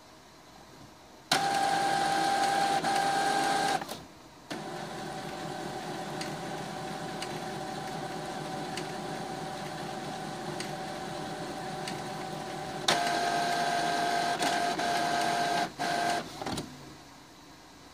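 Epson WF-2750 inkjet printer running its print-head cleaning cycle. A loud motor whine starts about a second in and stops near four seconds, then the mechanism runs more quietly and steadily. A second loud whine comes near the end, stopping and starting briefly before it falls quiet.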